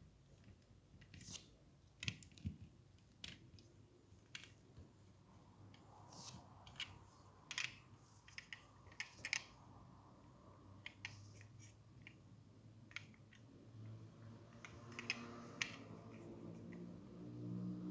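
Quiet, irregular light clicks and taps from hands handling a small diecast model car and its plastic and cardboard packaging.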